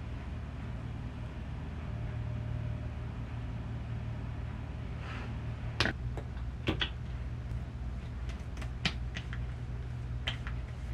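Steady low hum of room noise, with a short hiss about halfway through and then a handful of sharp light clicks and taps, the loudest near the middle and toward the end.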